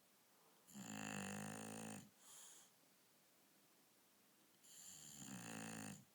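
Bulldog snoring in her sleep: two long snores about four seconds apart, the first followed by a short, softer sound.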